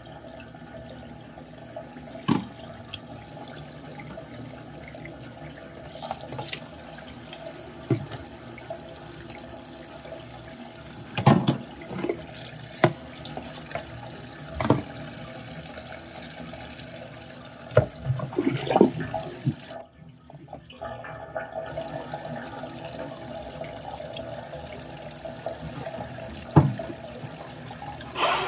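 Water running and splashing in a kitchen sink, with scattered knocks and clunks. The water briefly stops about two-thirds of the way through.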